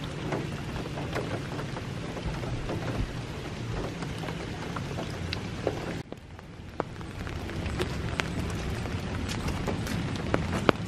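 Steady rain falling on puddles and soaked ground, with many small drops ticking close to the microphone. It drops away briefly about six seconds in, then builds back.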